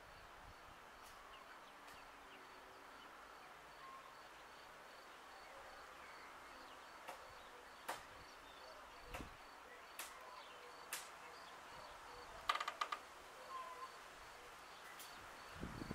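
Faint rural outdoor ambience: a soft, high chirp repeating evenly a few times a second, with a few scattered clicks and ticks in the second half.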